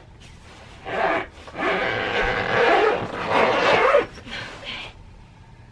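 A woman grunting and groaning with effort as she forces an overstuffed suitcase shut and pulls its zipper, with the rustle of the packed bag under her hands. A short strained burst about a second in, then a longer strained stretch lasting a couple of seconds.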